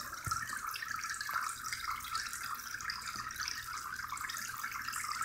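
Water trickling and splashing steadily in an indoor pond, a continuous crackly rush with no pauses.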